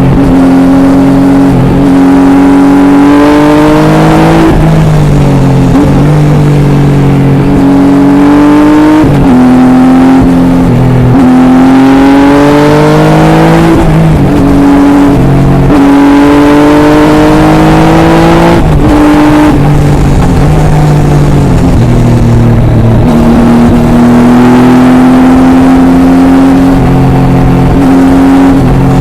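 Triumph Tiger 800 XRx's three-cylinder engine through an Arrow exhaust, heard on board while riding: it climbs in pitch and drops back several times as the bike accelerates and changes gear, then runs at a steadier pitch in the second half.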